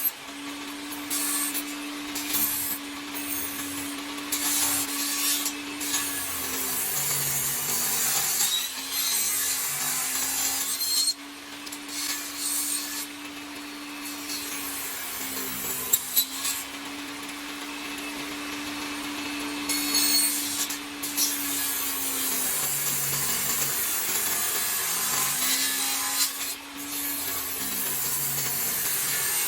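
A power tool cutting or sanding wood: a motor hum that rises and falls in pitch every five or six seconds as it is worked, under a steady rasping cutting noise.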